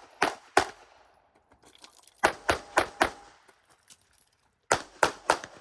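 9mm Glock 48 pistol firing rapid shots: a pair at the start, then a string of four, then another four after a short pause, at about three to four shots a second.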